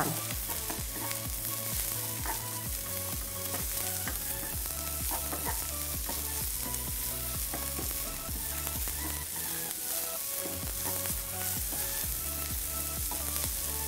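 Diced onion and garlic sizzling in coconut oil in a small frying pan, with a wooden spatula stirring and scraping through them again and again. The sauté is being taken until the onion turns brown.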